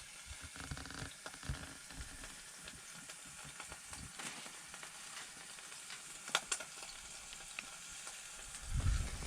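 Venison frying, with a steady sizzle and scattered crackles and pops.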